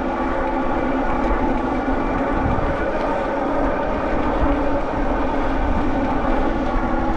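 Mokwheel Obsidian's 1,000 W rear hub motor whining steadily under load as the fat-tire e-bike climbs a steep grade at about 15 mph with pedal assist, a hum of several steady tones, fairly quiet for its power, over a low rumble.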